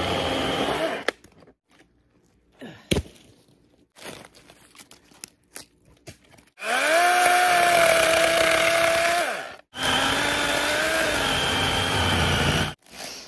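DeWalt 20V cordless battery chainsaw running in bursts while cutting a log: a short burst at the start, then two runs of about three seconds each, the motor whine rising in pitch as it spins up and holding steady through the cut. A single sharp knock about three seconds in.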